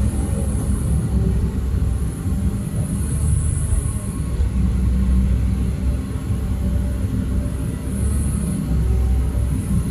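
Heavy diesel machinery running steadily with a deep rumble, and a high hiss that comes and goes every few seconds.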